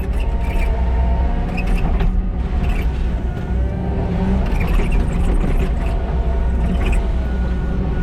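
Kubota SVL97-2 compact track loader's diesel engine running steadily under load as it grades crusher run, with a few short clicks and knocks over the drone.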